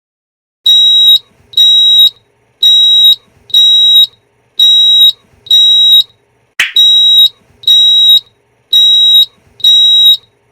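Fire alarm sounder on a demonstration board sounding a loud, high pulsed tone, about one beep a second, starting a moment in. A sharp click comes about two-thirds of the way through.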